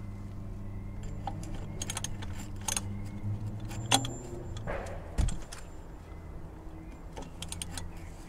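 Metal tools clinking and clicking as a 36 mm socket on an extension bar and a ratchet are fitted onto the plastic oil filter housing cap, with a sharp click about four seconds in and a dull knock just after five.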